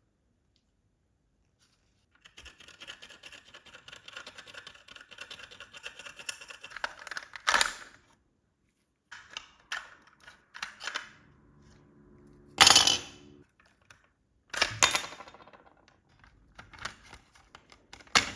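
Scraping and rustling from about two seconds in, then a string of clicks and several sharp knocks, the loudest a little past the middle.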